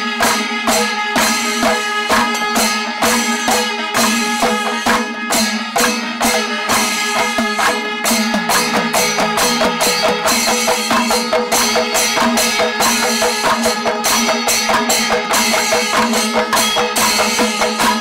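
Kerala temple percussion ensemble playing: chenda drums beaten in a fast, dense rhythm with ilathalam hand cymbals clashing along, and steady held notes above from the kombu horns.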